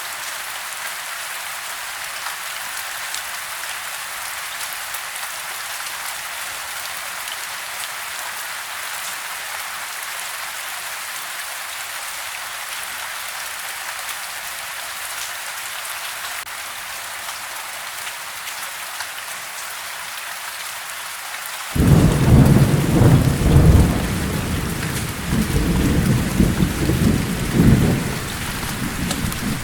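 Steady rain falling on a house, heard from inside. About three quarters of the way through, a loud low rumble of thunder starts suddenly and rolls on for several seconds in two swells before fading back under the rain.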